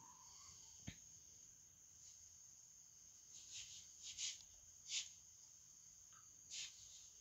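Near silence: room tone with a faint, steady high-pitched whine, a single soft click about a second in, and a few brief soft hissy sounds in the second half.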